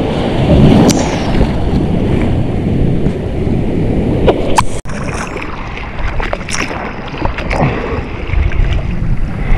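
Rushing surf water and wind buffeting the microphone in choppy waves, with a few sharp splashes about halfway through.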